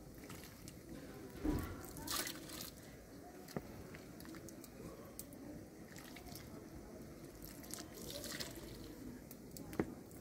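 Thick fig jam dripping and slopping as it is emptied from one cooking cauldron into another, faint, with a few sharp clicks scattered through it.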